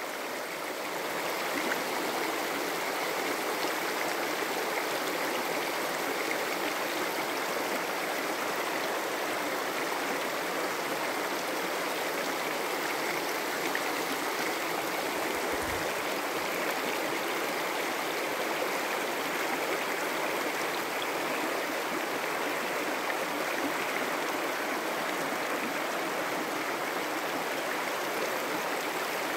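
Shallow river riffle running over gravel and cobbles: a steady rush of water.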